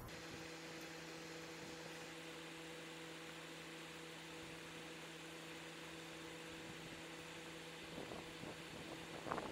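MrCool mini-split outdoor unit running with a steady low hum, its compressor drawing in R-410A refrigerant during charging. A few faint knocks near the end.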